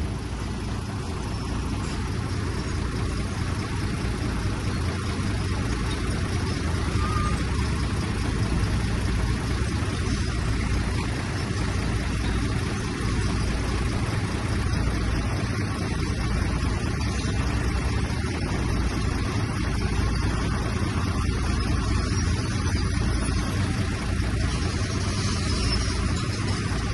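Heavy diesel engine of earthmoving machinery running steadily, with a strong low rumble and only small rises and falls in level.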